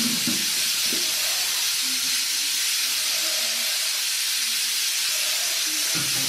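Pressure cooker on a gas stove venting a jet of steam through its weight valve in a loud, steady hiss, the sign that it has come up to pressure.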